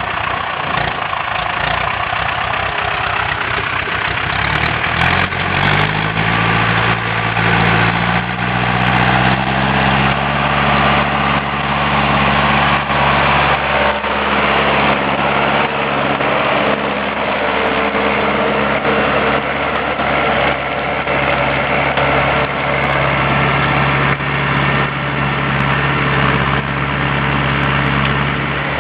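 Ursus C-355 tractor's four-cylinder diesel engine running, its pitch rising from about five seconds in and then holding steady.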